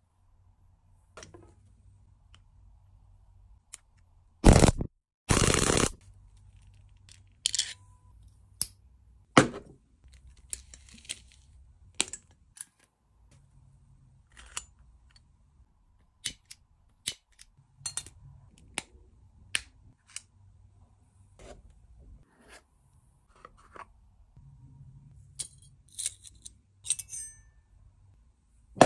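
Small metal jewellery and trinkets being handled: a string of sharp clicks and light metal clinks, with two loud, short noisy bursts about five seconds in.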